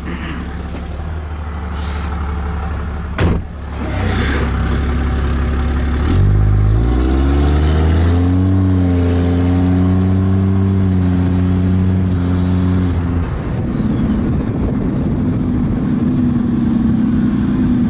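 Diesel dually pickup engine heard from outside by the rear wheels: a sharp knock about three seconds in, then the engine climbs in pitch as it accelerates from about six seconds and holds steady with a high turbo whistle. About thirteen seconds in the throttle lifts, the whistle falls away and the engine note changes as the new exhaust brake comes on.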